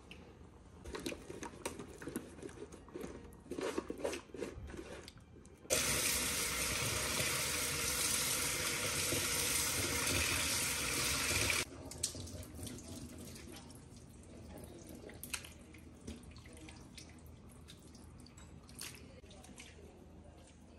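Kitchen tap running into a stainless steel sink as raw chicken pieces are rinsed under it; the water comes on suddenly about six seconds in and cuts off about six seconds later. Before it, knocks and clatter of handling at the sink; after it, quieter clicks and drips.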